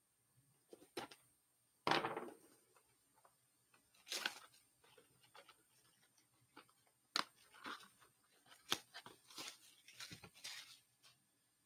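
Cardboard blaster box of hockey cards being opened by hand: short bursts of tearing and crinkling card with small clicks of flaps, loudest a little under two seconds in.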